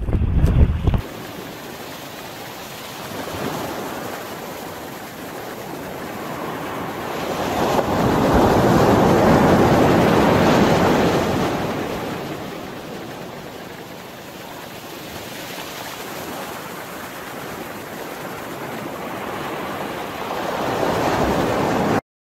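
Surf washing onto a sandy beach, swelling and ebbing slowly as waves come in, loudest about eight to eleven seconds in. It opens with a second of wind buffeting the microphone and cuts off abruptly near the end.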